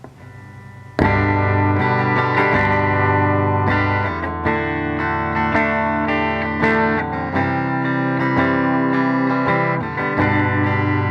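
Electric guitar played clean through a vintage Fender Princeton tube amp with two 6V6GT output tubes and a 10-inch speaker, set at volume 4. Notes and chords start about a second in, each ringing on into the next as they change every second or so.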